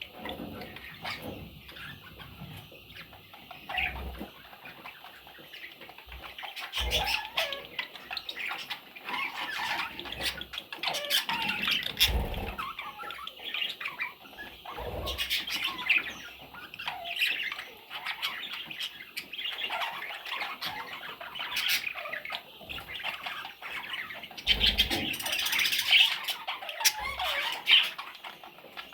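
Pet budgerigars chirping and chattering in quick, busy warbles with short squawks and wing flutters, and a few low thumps now and then.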